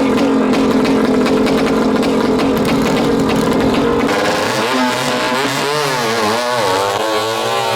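Racing speedboat engine running loud at high revs, holding a steady pitch for about four seconds, then wavering up and down in pitch for the rest.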